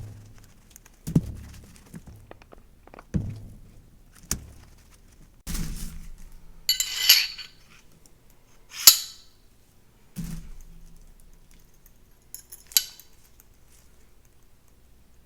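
Steel parts of a CZ Shadow 2 pistol being handled and set down during cleaning. A series of dull knocks comes about once a second, then a short metallic scrape and sharp clinks of metal on metal, and a last thump and click.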